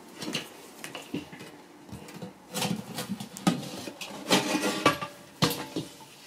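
Glass cover and rubber edge seal being worked off a lamp's aluminium reflector: irregular rubbing and scraping with light clinks and knocks of glass against metal, the sharpest several in the second half.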